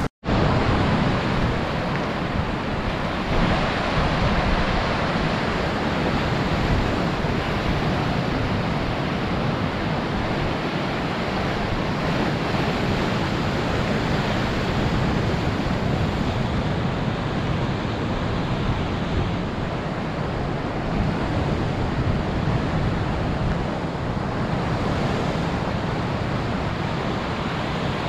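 Pacific surf breaking and washing on a sandy beach, a steady rushing wash of waves, with some wind buffeting the microphone.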